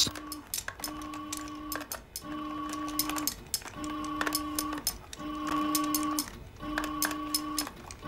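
Electronic background music with a mechanical feel: a steady buzzing note about a second long repeats roughly every one and a half seconds over fast clicking ticks.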